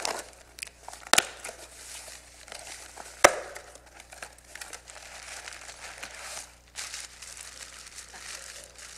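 Gift wrapping paper being torn and crumpled as a present is unwrapped: sharp rips at the start, about a second in and about three seconds in, then steady crinkling.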